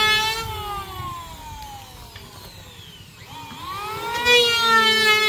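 Electric hand planer's motor whining as it shaves the high spots off a hardwood floor joist to bring it flat. About half a second in the whine sinks steadily in pitch as the motor winds down. Just after three seconds it climbs back up to speed and runs steadily again.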